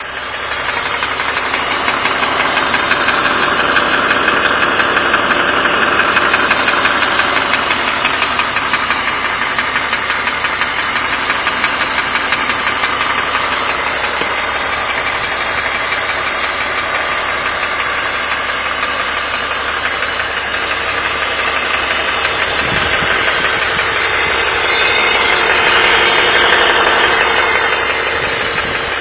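BMW 330i E46's M54B30 3.0-litre straight-six running, with a rapid ticking, knocking rattle throughout; the owner suspects piston slap from the bottom end. It grows louder for a few seconds near the end.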